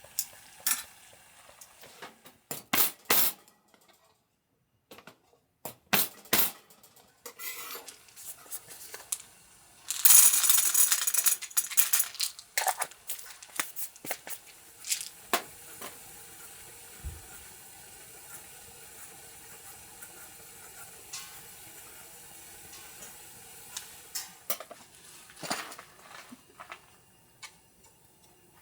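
Camp cookware and utensils clinking and knocking against one another, with scattered sharp taps and a louder rush of noise lasting about two seconds near the middle.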